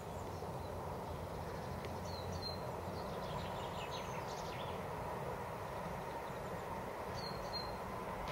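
Steady low outdoor rumble with a few short bird chirps, a cluster about two to four seconds in and another near the end.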